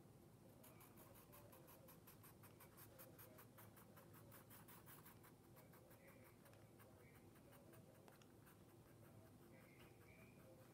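Faint scratching of a wooden pencil drawing on paper: a quick run of short strokes, about four or five a second, for the first six seconds or so, then sparser strokes.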